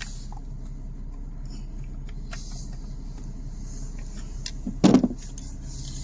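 Pliers clicking and scraping on the loose key start switch's retaining nut as it is worked open, with one short loud knock about five seconds in, over a steady low hum.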